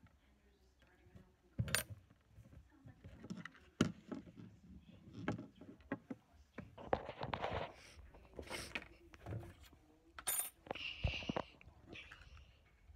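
Small objects being handled on a wooden tabletop: an irregular series of light knocks and clicks, with short rustles now and then.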